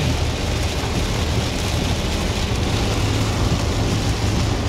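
Steady rain drumming on the car mixed with tyre noise on a wet freeway and a low engine and road rumble, heard from inside the car's cabin.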